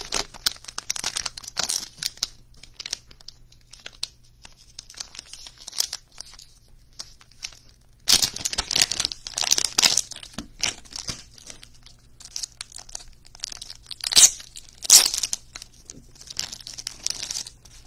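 A trading card pack's foil wrapper being torn open and crinkled by hand, with cards in plastic sleeves rustling. Irregular crackling throughout, denser about eight seconds in, with two sharp, loud crackles near the end.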